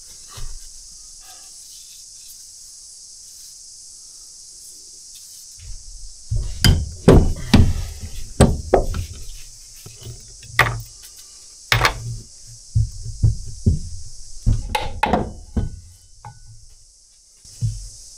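Irregular clusters of heavy metal knocks and clunks as parts of a Kubota B7100 hydraulic lift unit are struck and handled on a wooden workbench. The knocks start about six seconds in and go on for about ten seconds, with one more near the end.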